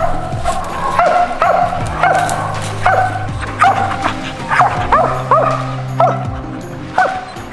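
A squirrel dog barking treed at the base of a tree, with short sharp barks repeated about twice a second, which tell that it has a squirrel up the tree. Background music plays under the barking.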